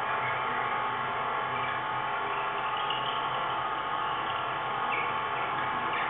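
Steady electronic buzzing drone of several held tones layered over a hum, with faint short chirps about three and five seconds in.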